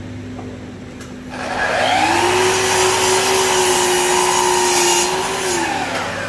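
Festool miter saw switched on with a click, its motor whining up to speed with the attached dust extractor running alongside, cutting through a plywood strip, then winding down after about five seconds. A steady low hum sits underneath.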